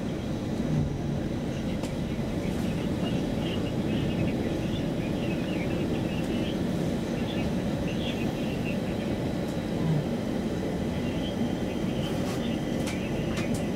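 Inside a Stockholm Metro C20 train car running along the track: a steady rumble of wheels on rail, with faint high squeaks and a few sharp clicks near the end.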